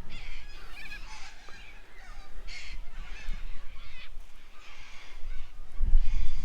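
Birds calling repeatedly with short, harsh, scratchy calls. A low rumble of wind on the microphone grows louder near the end.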